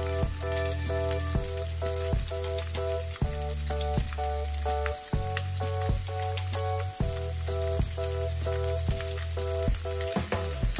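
Breaded prawn skewers frying in hot oil in a frying pan, giving a steady crackling sizzle. Background music with a bass line, a repeating melody and a beat plays over it.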